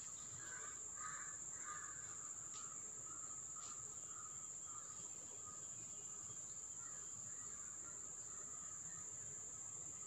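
Faint background with a steady high whine and a few faint short calls in the first two seconds. There are two light clicks as a knife lifts steamed rice-flour rolls off a stainless steel idli plate.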